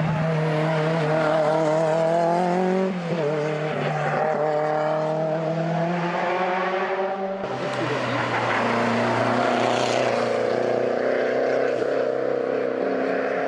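Competition cars climbing past under hard acceleration, one after the other. The first engine's high, steady note drops at a gear change about three seconds in, and a second car's engine takes over about halfway through.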